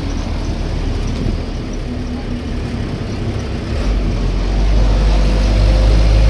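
Engine and road noise heard inside a moving bus: a steady low rumble that grows louder and deeper about four seconds in.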